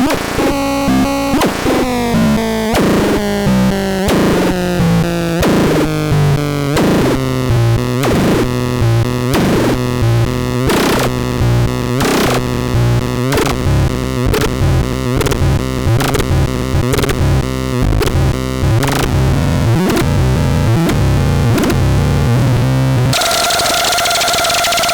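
Harsh synthesized electronic tone pulsing about twice a second, its pitch sliding down over the first few seconds and then holding low. Near the end it switches abruptly to a steady, higher two-note tone with hiss.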